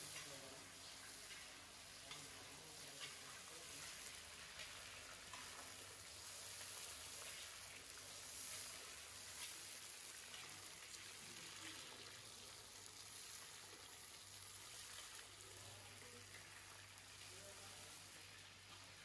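Meat kebab skewers deep-frying in hot oil in a large kazan: a faint, steady sizzle with scattered small pops.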